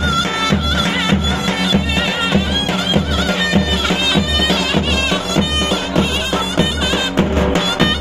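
Davul and zurna playing halay dance music: a shrill, wavering reed melody held without a break over steady bass-drum beats.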